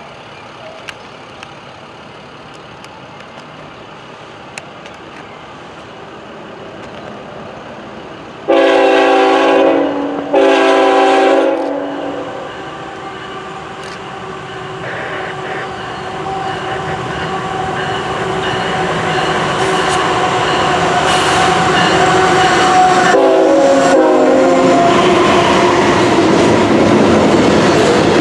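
Train horn sounding two long blasts of several tones at once as a train approaches, then a shorter blast later on. The rumble of the train grows steadily louder toward the end.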